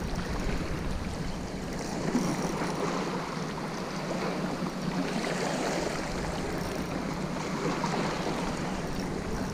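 Steady noise of sea wind and surf at the shoreline, with a steady low hum underneath.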